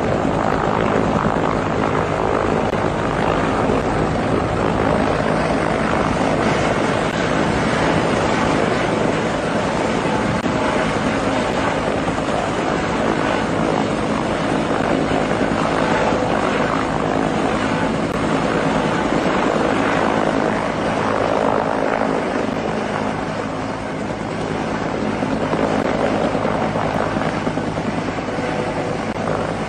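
Firefighting helicopters, a Bell Huey-type and a Eurocopter Dauphin, hovering low while filling through a snorkel hose dipped in a pond: steady rotor and turbine noise.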